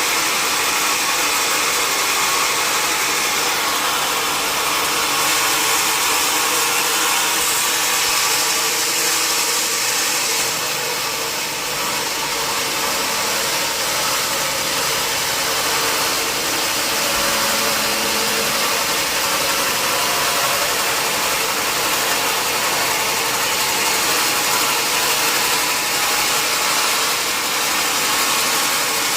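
Large sawmill saw machinery running steadily, a loud, even noise with a faint steady hum.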